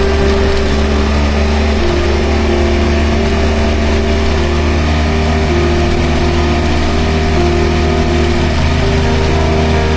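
BMW motorcycle engine running steadily under way, its pitch shifting a little now and then.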